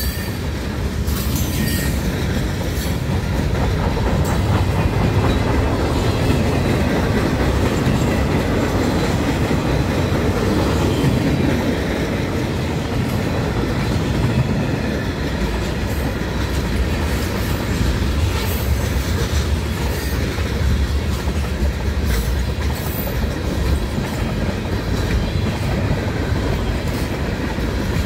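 Freight train's tank cars and other freight cars rolling past at close range: a steady rumble and clatter of wheels on the rails.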